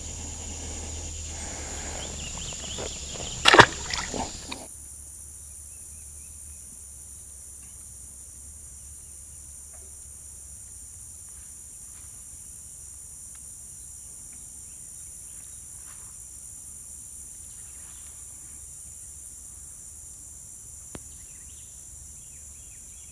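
Steady high-pitched drone of an insect chorus, with a brief loud splash about three and a half seconds in.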